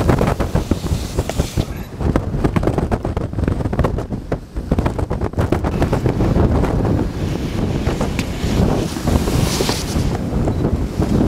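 Wind buffeting the microphone: a loud, uneven rumble with many short crackles.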